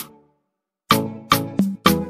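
Background music with a steady beat of sharp hits. It cuts out completely for about half a second near the start, then comes back in.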